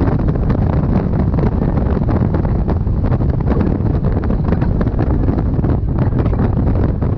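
Wind buffeting the microphone: a loud, steady, low rumble with no let-up.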